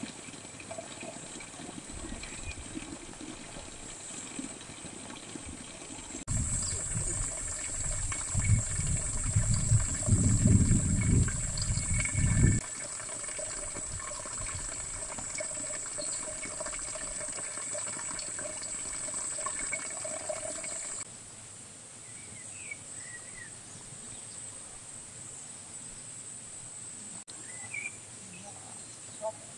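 Summer countryside ambience that changes abruptly several times: a steady high-pitched insect buzz, a gusty low rumble of wind on the microphone from about six to twelve seconds in, and a few short bird chirps near the end.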